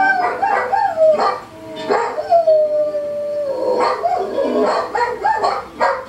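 A dog howling: a string of wavering howls, with one long held howl in the middle that slides slowly down in pitch.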